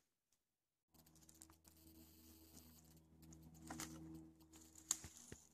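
Near silence with a faint low hum, broken by a few faint, sharp knocks of a hatchet striking wood on a chopping block, the clearest near the end.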